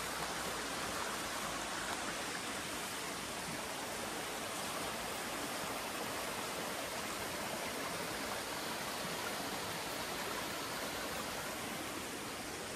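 Spring-fed creek water running over stones, a steady rushing that does not change.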